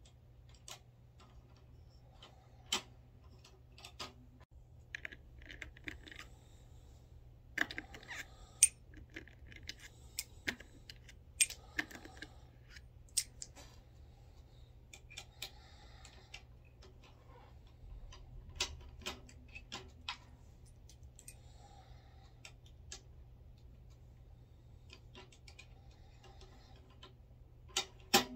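Irregular sharp clicks and metallic clinks of brass 300 Blackout cases being handled and run through a Lee C press with a flaring die to flare the case mouths. The clicks come a few at a time with gaps of several seconds.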